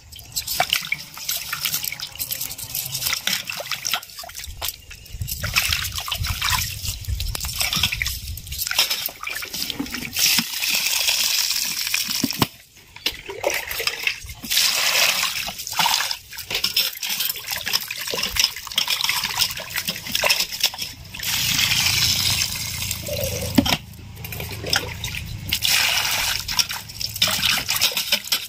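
Small jilebi (tilapia) fish being rinsed by hand in water: water sloshing, splashing and trickling in surges as the fish are rubbed and turned.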